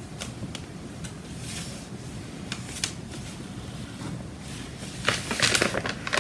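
Metal icing spatula scraping and tapping on a wet, white-painted canvas as acrylic paint is spread and touched up: a few light clicks, then louder scraping from about five seconds in, over a low steady hum.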